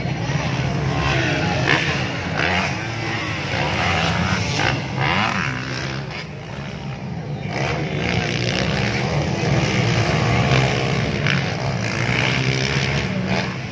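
Motocross dirt bike engines revving and falling away again and again as the bikes race over the track's jumps, their pitch rising and dropping throughout. Spectator chatter runs underneath.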